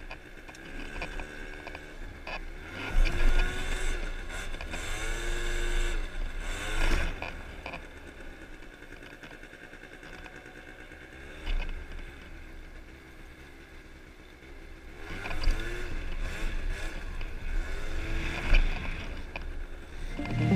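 2015 MBK Booster Spirit 50cc two-stroke scooter engine being ridden, revving up and falling back again several times, with a quieter, steadier stretch in the middle. Wind rumbles on the microphone.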